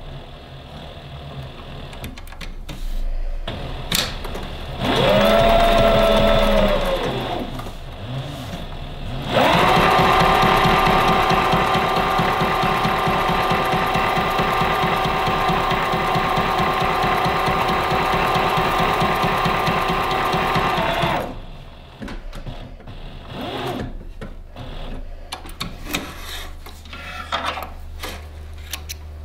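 Tandy Craftool Stitchmaster industrial leather sewing machine, driven by its servo motor, stitching leather. About five seconds in there is a short run that speeds up and slows down. A long steady fast run of about twelve seconds follows, with a rapid even stitch rhythm. After that come scattered handling clicks.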